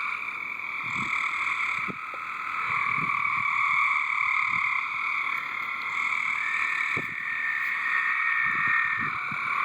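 A loud, dense chorus of many frogs calling together from a swimming pool: a steady, unbroken wall of overlapping calls at two pitches, one higher and one lower.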